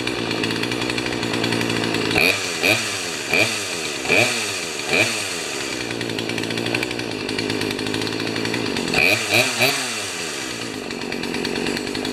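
Poulan 3816 chainsaw's 38 cc two-stroke engine idling, blipped to high revs and straight back down five times from about two seconds in and three more times near the end, checking the freshly adjusted carburetor with the low-speed mixture set a tiny bit rich.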